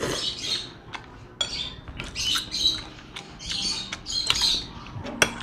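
Thick lomi egg noodles being slurped in from a fork: a series of short, wet sucking slurps, with a few sharp clicks of the fork on the plate.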